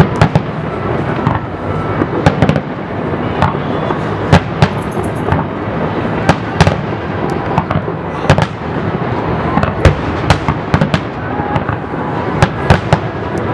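Fireworks display: aerial shells bursting in quick, irregular succession, many sharp bangs over a steady background noise.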